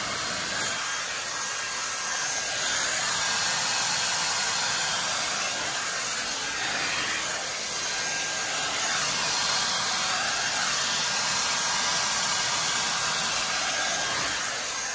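StyleWrap 4-in-1 hot-air dryer brush with its straightening-brush attachment running steadily: a rush of blown air with a faint high motor whine, as the brush is drawn through hair.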